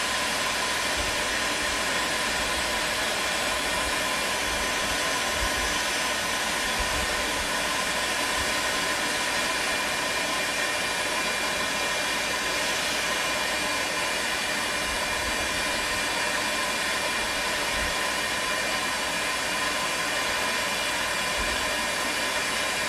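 Stanley STEL670 electric heat gun running steadily on one setting, blowing hot air onto a rigid plastic PPC water pipe: a constant rush of air with a faint steady motor whine.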